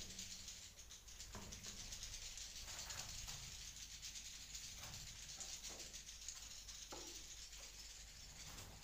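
Swiftlets chattering and clicking inside a swiftlet house: a dense, faint high twitter full of rapid clicks, with a few louder single chirps or taps scattered through.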